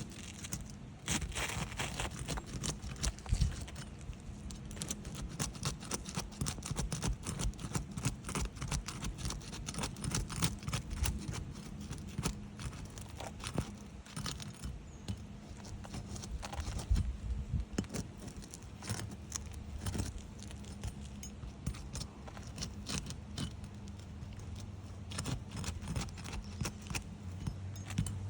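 Metal roof snake (shingle removal tool) scraping and clicking against asphalt shingles in many irregular short strokes, with metallic jangles, as the top and bottom shingle courses are worked apart.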